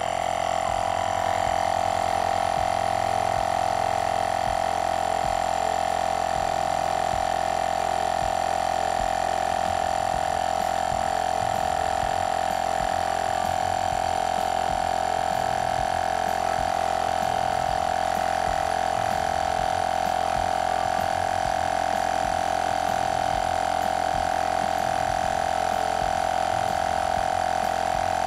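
UltimateSpeed UMK 10 C2 12-volt mini compressor running steadily under load while pumping up a car tyre: an even, unbroken mechanical hum.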